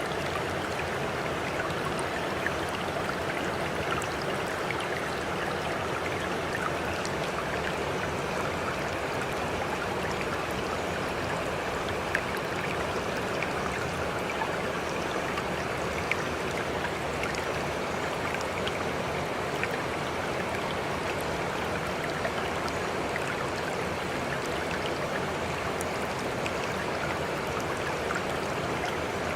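Running water flowing steadily, like a stream, with faint small splashes and drips ticking through it.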